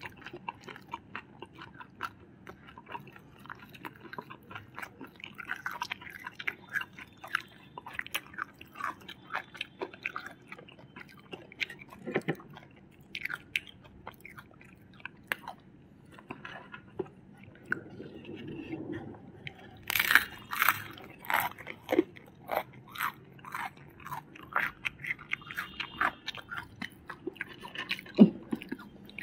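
Chewing and crisp crunching of crispy fried chicken and french fries, many small crackling bites one after another, the loudest crunches about two-thirds of the way through.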